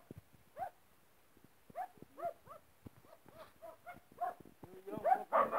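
A dog giving short, repeated yelping barks, a few a second, getting louder near the end.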